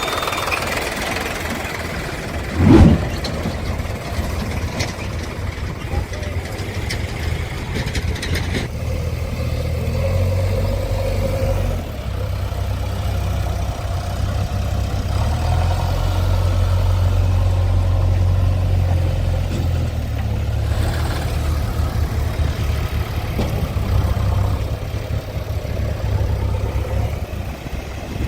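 Heavy diesel engine running steadily with a low hum, with a single loud thump about three seconds in.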